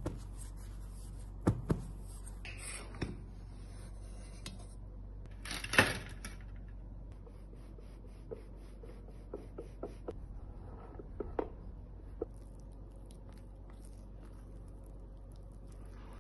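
Kitchen handling sounds as baked chocolate cakes are turned out of metal cake pans on a wire cooling rack: a few sharp knocks and cloth rubbing, with the loudest knock about six seconds in. Fainter ticks and scrapes follow over a steady low hum.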